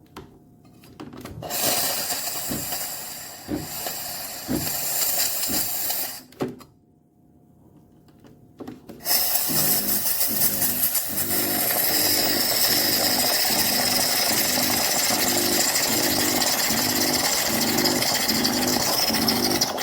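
De'Longhi Dedica espresso machine's steam wand hissing. A first burst of steam runs for a few seconds and stops. About nine seconds in, a loud steady hiss starts, with the machine's pump buzzing in pulses about twice a second.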